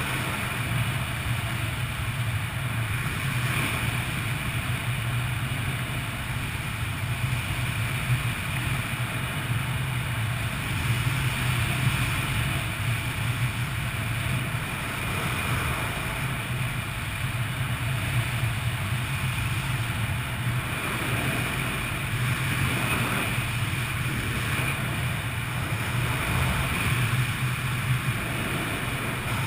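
Steady wind rushing over a helmet-mounted camera's microphone, a low, even rumble of airflow from a skydiver's descent under an open parachute canopy.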